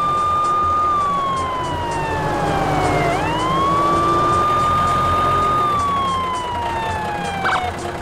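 A siren wailing through two slow cycles: each rises quickly, holds high for about a second, then slides slowly down before rising again just after the halfway point.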